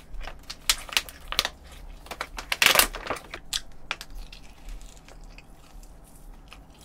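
Plastic pouch of a ready-to-eat chicken breast crinkling and crackling as it is peeled open, with one louder rustle just under three seconds in, then biting into the chicken and chewing.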